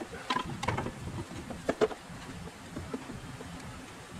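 Scattered light metal clinks and knocks, a few in the first two seconds with the loudest just before two seconds in, as a transfer case is handled and fitted into place by hand under the vehicle.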